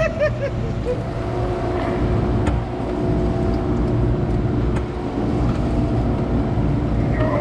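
Boat motor running steadily, a constant low drone with a steady hum.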